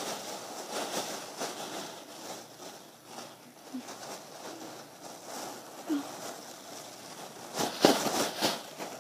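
Plastic shopping bags rustling and crinkling as they are handled and stuffed, with a burst of louder crinkling near the end as a bag is pushed right up to the microphone.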